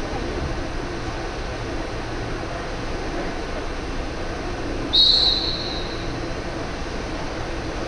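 A referee's whistle blown once, a short sharp blast about five seconds in, over the steady background noise of the pool hall.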